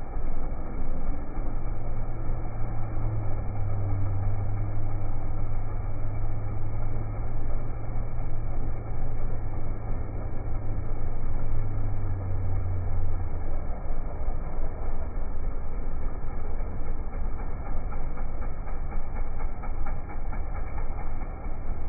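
ATV quad-bike engine running with a steady low note over a constant rough rumble of noise; the steady engine note drops away about two-thirds of the way through.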